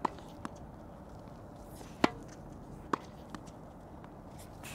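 Tennis racket strings striking a tennis ball, each a sharp pop with a short ring. The pops come three times: at the start, about two seconds in, and about a second after that, the middle one loudest, with two fainter ticks between.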